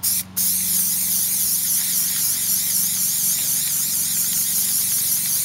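Aerosol spray adhesive hissing from the can: a brief burst at the start, then one long continuous spray.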